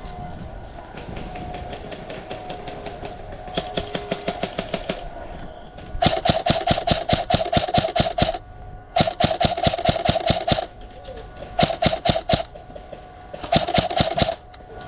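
Airsoft gun firing full-auto: five bursts of rapid, evenly spaced shots, each lasting one to two and a half seconds, starting a few seconds in.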